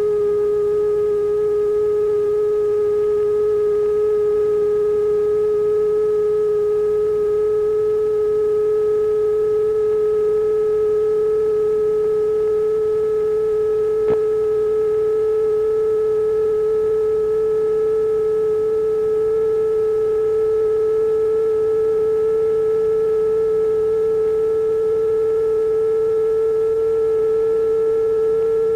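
Electronically generated sine-wave tone, held loud and steady while rising very slowly in pitch, with fainter higher tones above it. A single faint click comes about halfway through.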